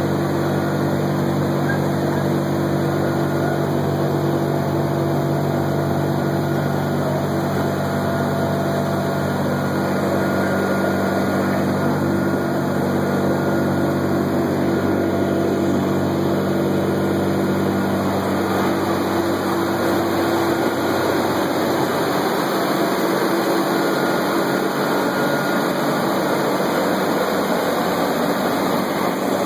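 A B-17 Flying Fortress's four Wright R-1820 Cyclone radial engines and propellers in cruise flight, heard from inside the bomber's nose as a loud, steady drone of several held tones over a rushing noise.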